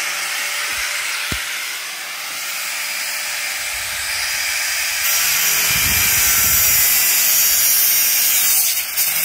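Angle grinder's abrasive disc cutting through a scooter's metal frame: a steady, high grinding hiss that grows louder about five seconds in.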